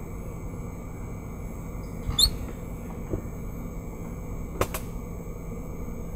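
Steady background hiss with a faint hum, broken by a short squeaky chirp about two seconds in and a single sharp click a little after the middle.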